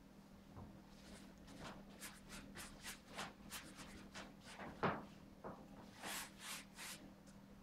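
Paintbrush scrubbing and dabbing paint onto a large canvas: a quick run of short brushing strokes, with one louder knock about five seconds in.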